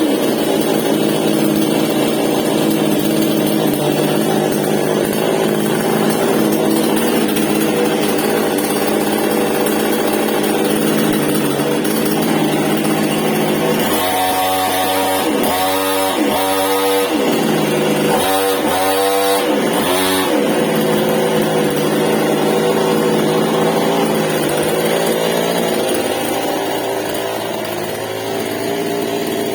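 Stihl MS 788 two-stroke chainsaw engine running steadily, then revved up and down five times in quick succession about halfway through before settling back to a steady run.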